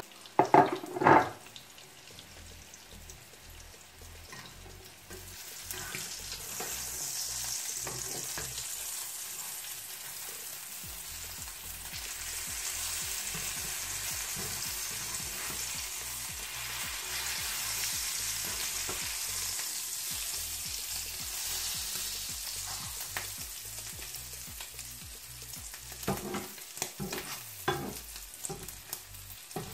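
Eggplant omelette with minced meat sizzling in oil in a frying pan, a steady hiss. A spatula and fork clatter loudly against the pan about a second in, and scrape and tap in the pan again near the end.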